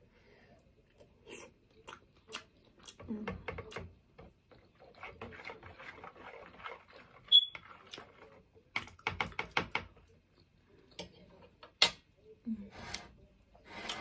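Close-miked chewing and wet mouth sounds of eating sausage, with the clicks and scrapes of a metal fork in a plastic sauce tub; a sharp clink about seven seconds in.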